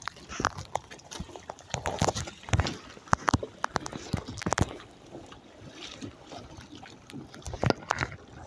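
Irregular knocks and clunks on a small sailing kayak, loudest in clusters a couple of seconds in, around the middle and near the end, over water splashing against the hull and wind on the microphone.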